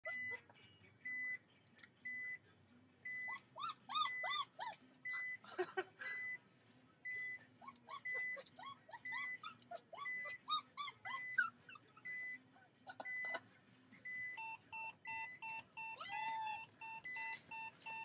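Two dogs whining in short rising-and-falling cries over a car's reversing beeps. The beeper sounds a steady tone about once a second, then switches to a different, quicker beep about fourteen seconds in.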